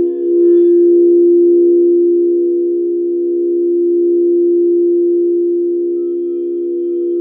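Several singing bowls sounding together as a sustained chord of steady, pure tones that slowly swell and ebb. Fainter higher ringing fades out in the first second.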